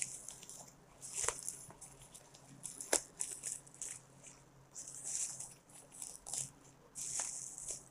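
Bubble-wrap plastic packaging crinkling and scratching as it is handled and slit with a blade, in about five short scratchy spells with a few sharp clicks between.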